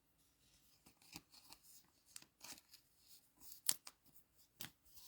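Faint rustling and light clicks of Dragon Ball Z trading cards being handled, with a few sharper snaps between about three and a half and five seconds in.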